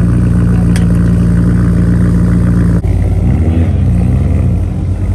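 Car engine idling with a steady drone. About three seconds in, the sound changes abruptly to an engine whose pitch briefly rises and falls, like a short rev, then settles back to a lower steady idle.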